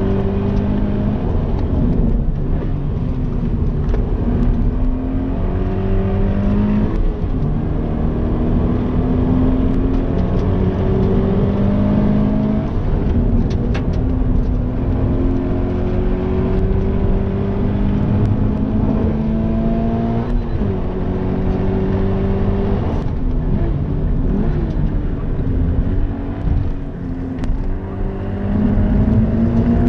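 Stock Toyota GT86's 2.0-litre FA20 flat-four engine heard from inside the cabin while lapping a circuit, its pitch climbing through the revs again and again and falling back between climbs, over a steady rumble of tyre and road noise.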